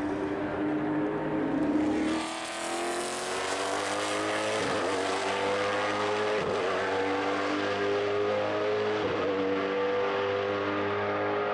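Racing Ford V8 engine accelerating on track, its pitch climbing steadily with three brief dips, like gear changes. A rush of noise about two seconds in.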